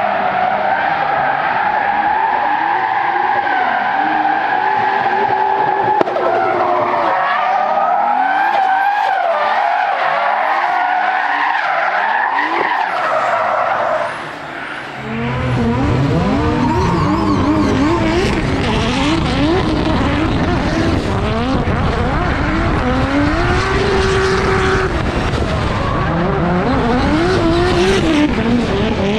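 Drift cars sliding at speed: tyres screeching in a long, wavering squeal over engines revving up and down. About 15 seconds in the sound changes to a closer, louder car whose engine revs rise and fall as it drifts, with tyre squeal on top.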